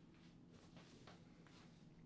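Near silence: a faint room hum with soft, brief rustles of a person moving and sitting down.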